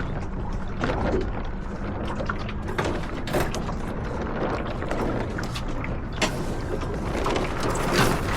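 Wind buffeting the microphone and water rushing along the hull of a small sailboat under way, with scattered knocks and clicks from the boat's gear.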